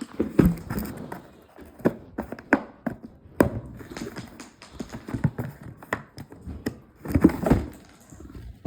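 Toy packaging and plastic parts being handled: irregular taps, knocks and rustling, with a louder cluster of handling about seven seconds in.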